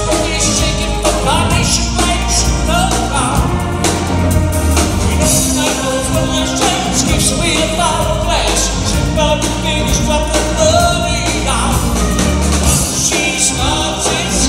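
Live rock band playing, with a man singing lead over electric guitar, keyboards and drums.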